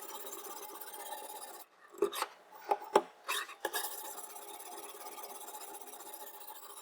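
A chef knife's edge rasping steadily against a diamond sharpening stone. About two seconds in, the rasping stops for a couple of seconds and a few sharp clicks and knocks are heard before it resumes.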